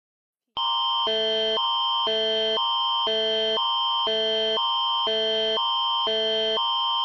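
Canadian Alerting Attention Signal of an Alberta Emergency Alert, starting about half a second in. It swaps between two chords every half second, a higher one around 1 kHz and a lower one around 440 and 660 Hz, over a steady high tone. The signal announces a critical emergency alert broadcast, here an Amber Alert.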